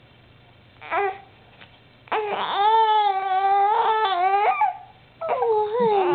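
A baby vocalizing: a short sound about a second in, then a long, drawn-out cry-like wail held at a steady pitch, and another near the end that slides down in pitch.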